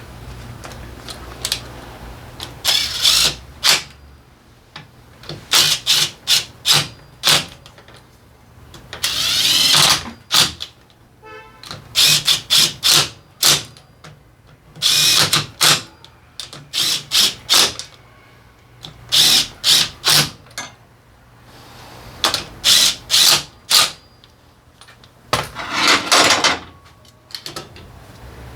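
Handheld electric power driver run in short bursts, mostly in quick groups of two to five pulses with pauses between, driving engine cover bolts.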